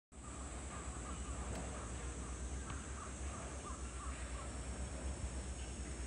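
A quick run of short, repeated animal calls, crow-like caws or barks, over a steady low rumble of wind on the microphone.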